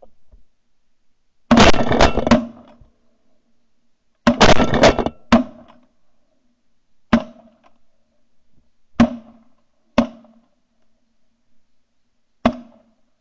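Several shotguns firing. There are two rapid volleys of about half a dozen overlapping shots each, then four single shots spaced a second or two apart.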